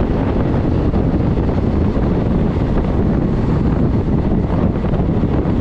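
Wind buffeting the microphone on a moving train, with the train's running rumble underneath. It is a loud, steady rush that is heaviest in the low end.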